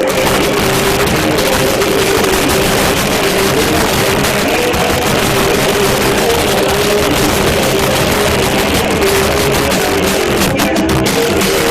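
Live band playing loud rock with electric guitars and drums, recorded with heavy distortion, a steady wall of sound with no breaks.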